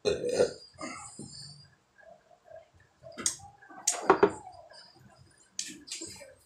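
Eating and drinking noises from a man at the table: a sip from a plastic bowl, then mouth clicks and smacking. About four seconds in come a few sharp knocks as the plastic bowl is set down on the table.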